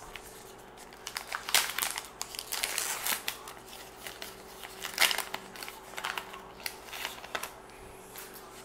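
Paper wrapper of a sealed trading-card pack being torn open and crinkled in the hands: irregular sharp crackles, loudest about a second and a half in and again about five seconds in.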